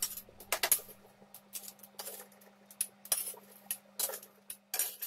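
Metal ladle scraping and clinking against a steel kadai as dry-roasted whole spice seeds are scooped out into a steel mixer-grinder jar. The clinks come irregularly, a dozen or so, loudest just under a second in and near the end.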